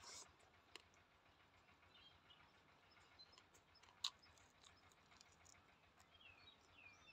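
Near silence with faint mouth clicks of a man eating roasted rat meat with his fingers, one sharper click about four seconds in as a piece goes into his mouth. A bird gives two short falling chirps near the end.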